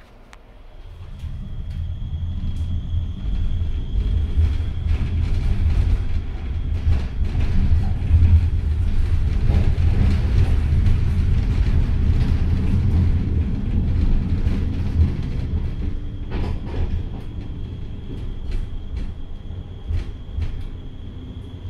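PESA 2014N Krakowiak low-floor tram running on its rails, heard from inside: a low rumble of wheels on track that builds over the first few seconds as it gets under way, then holds steady. Sharp clicks and knocks come through now and then as the wheels cross rail joints and points, with a thin steady high whine near the start and again towards the end.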